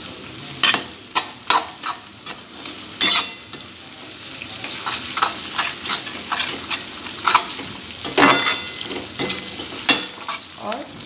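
Onion cubes, tomato and green pepper sizzling in hot oil in a kadhai while a metal slotted spatula stirs them, with sharp scrapes and knocks of the spatula against the pan.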